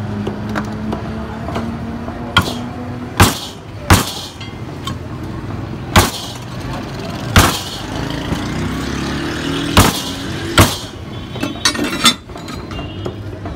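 Butcher's cleaver striking beef on a wooden chopping block: about seven sharp chops at irregular intervals, over steady background noise.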